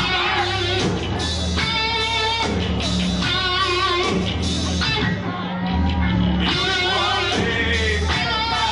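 Metal band playing live: distorted electric guitar, bass and drums with a lead vocal sung over them.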